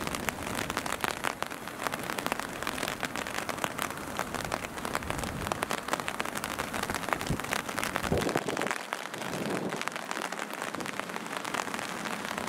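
Steady rain, a dense patter of drops hitting surfaces.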